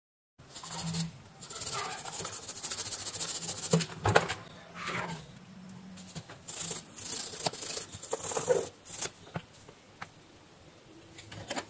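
Bristle brush scrubbing a corroded electric-shaver circuit board: a scratchy rustle in uneven strokes, with several short sharp clicks.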